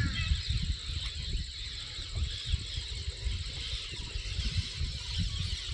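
Outdoor background noise: an uneven low rumble with a steady high-pitched hiss above it.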